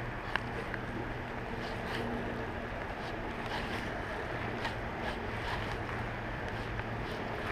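Steady outdoor noise of light rain and wind on the microphone over a low steady hum, with scattered faint irregular taps.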